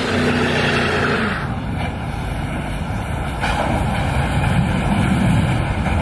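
V8 sports car doing a burnout: the engine is held at high revs with the rear tyres screeching. The screech stops suddenly about a second and a half in, and the engine runs on at lower revs, swelling again near the middle.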